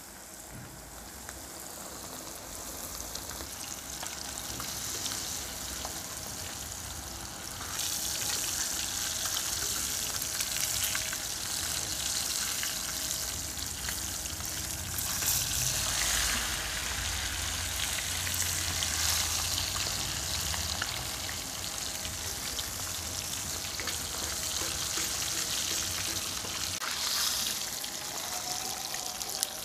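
Snakehead fish pieces sizzling in shallow oil on a flat tava pan; the frying gets louder about eight seconds in and keeps up steadily.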